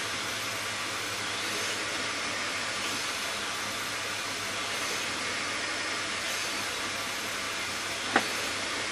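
Vacuum cleaner running steadily, its suction driving a working model beam engine, with one sharp click near the end.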